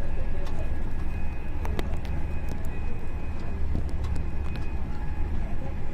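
Passenger train running along the line, heard from on board: a steady low rumble with scattered faint ticks and a thin, steady high tone over it.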